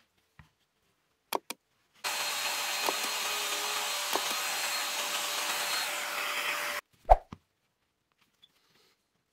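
Festool Domino joiner running and cutting a mortise into the end of a wooden strip: a steady motor-and-cutter noise that starts suddenly about two seconds in and stops abruptly after about five seconds. A sharp knock follows just after it stops.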